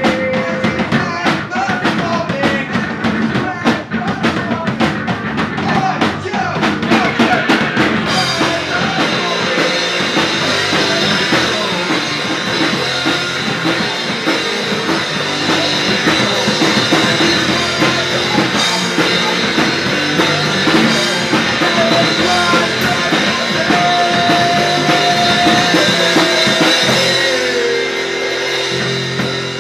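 Live rock band playing loud: a drum kit hammering fast cymbal and drum hits, with electric guitar and a singer. Near the end the drums stop and the guitar rings on.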